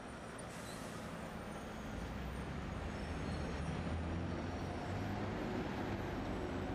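Street traffic noise, with a heavy vehicle's engine rumbling and growing louder from about two seconds in.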